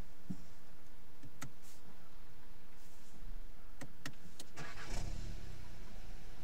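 A few sharp clicks, then the Volkswagen Golf 7's engine cranks briefly and starts about five seconds in, settling to a low idle.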